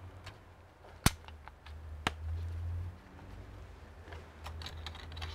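Two sharp clicks about a second apart, the first the loudest, then a quick run of lighter clicks and ticks near the end: small parts being handled and pressed into place by hand inside an open Dell Alienware 15 R3 laptop.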